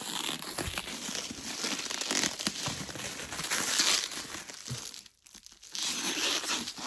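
Packing material crinkling and rustling as a tightly packed ceiling fan motor is worked out of its shipping box, with a brief pause about five seconds in.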